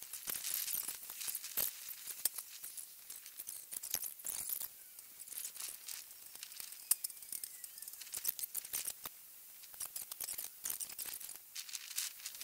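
Plastic spreader scraping Bondo body filler over a rusted car roof panel: irregular scratchy strokes and clicks, with a short lull about nine seconds in.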